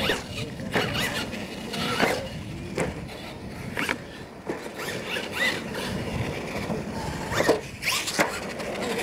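Radio-controlled monster trucks driving on dirt. Their motors and gears whine up and down in short rising and falling runs as the throttle is worked, with several sharp knocks as they land off ramps.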